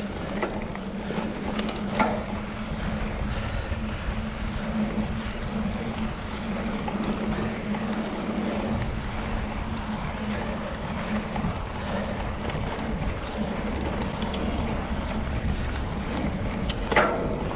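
Mountain bike rolling over a hard-packed dirt fire road: knobby tyres give a steady hum and crunch, with wind on the microphone. Two sharper knocks from the bike hitting bumps, about two seconds in and near the end.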